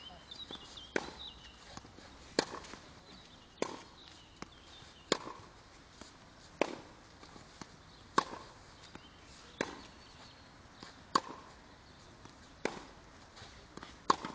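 Tennis balls struck by a racket in a baseline rally on a clay court: sharp pops about every one and a half seconds, with fainter knocks between them.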